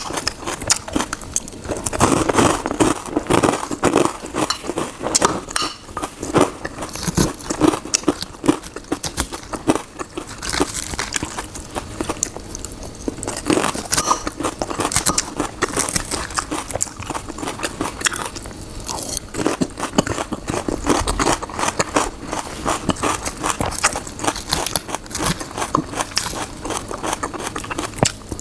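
Close-miked eating: a person chewing and biting food, a dense irregular run of small clicks and smacks from the mouth.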